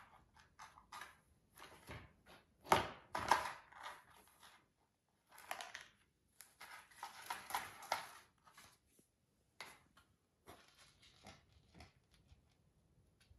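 A cat's paws scraping and rustling at a homemade cardboard treat-puzzle board as it fishes in the holes. The sound comes in irregular scratchy bursts, loudest about three seconds in.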